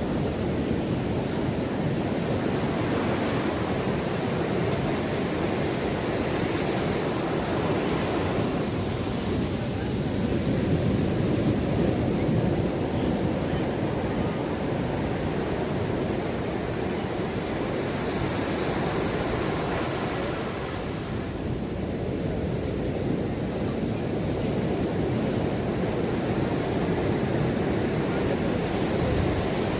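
Ocean surf washing onto a beach: a continuous rush of water that swells every few seconds as waves break, then eases off.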